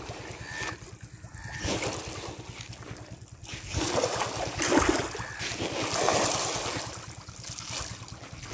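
A crowd of farmed fish thrashing and splashing at the pond surface in repeated surges, loudest around the middle, over a low rumble of wind on the microphone.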